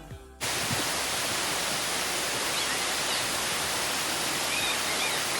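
Waterfall, a steady rush of falling water cutting in suddenly about half a second in, with a few faint high chirps over it.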